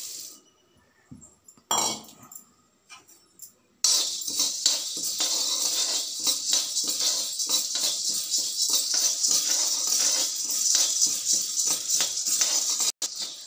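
Dry split roasted chickpeas (pottukadalai) being dry-roasted in a metal kadai. After a quieter start with a few light clicks, a continuous, dense, shaker-like rattle begins about four seconds in, as a spoon stirs the hard grains against the pan.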